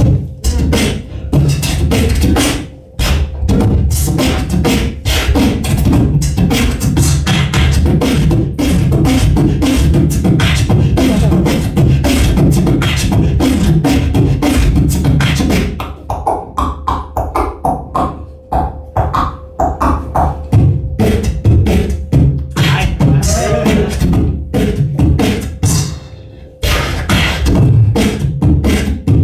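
Live beatboxing through a handheld microphone and PA: a dense beat of kick and snare strokes over heavy bass. About halfway through it thins out to sparser, more pitched sounds. It drops off briefly near the end before the full beat comes back.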